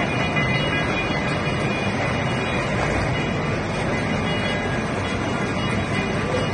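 Wire mesh coating machine running, with steady, even machine noise and a faint constant hum, as the coating liquid in its tank is kept churning.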